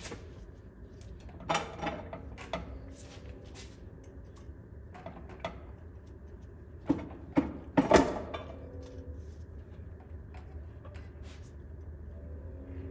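Scattered metallic clanks and knocks of tool work on a truck's transmission and transmission jack, with a cluster of sharper, louder knocks a little past halfway, over a steady low hum.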